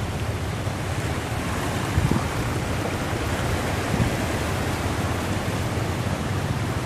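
Floodwater rushing and splashing across a road: a steady wash of water noise with a low rumble beneath it, and two brief thumps about two and four seconds in.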